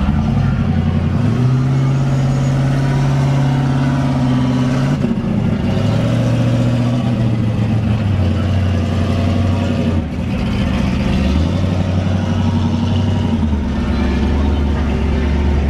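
Turbocharged engine of a 1971 Chevrolet Caprice running loudly, its pitch stepping up and down between a few held speeds every couple of seconds.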